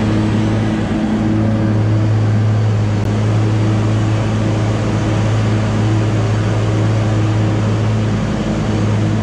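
Tractor engine running steadily under load, driving a Schuler feed mixer wagon as its side conveyor discharges feed into a cattle feed bunk. A constant low engine hum with a dense mechanical rush from the mixer and the falling feed over it.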